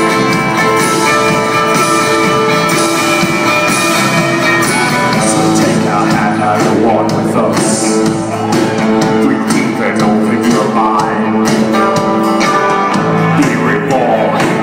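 A live rock band playing, with strummed acoustic guitar, electric guitars and keyboards holding long notes, and a man singing from about six seconds in.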